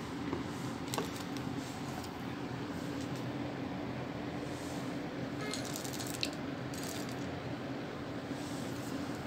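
Chocolate chips poured from a glass bowl into a plastic food-chopper bowl, clattering for a second or two past the middle, over a steady low hum.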